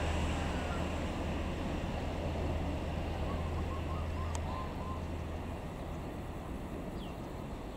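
Argo Lawu express passenger train's last coaches rolling away on the track: a steady low rumble and hum that slowly fades, with a few faint high chirps about halfway through.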